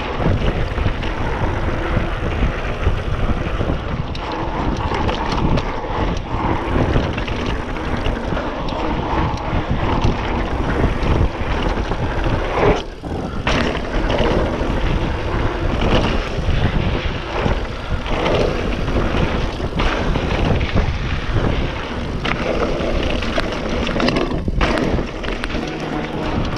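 A 2019 Trek Roscoe 8 mountain bike on 27.5-plus tyres rolling fast down a dirt flow trail: loud rushing wind on the chest-mounted action camera's microphone over a low tyre rumble, with irregular knocks and rattles from the bike over bumps. The noise lets up briefly about halfway through.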